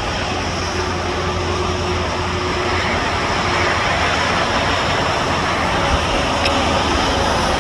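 Jet airliner's engines heard from a distance during the landing rollout just after touchdown: a steady rumble that grows a little louder about halfway through.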